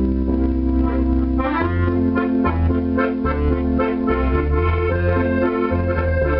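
Electronic accordion played through an amplifier in an organ-like voice: held chords over a bass line that changes note about every half second to a second.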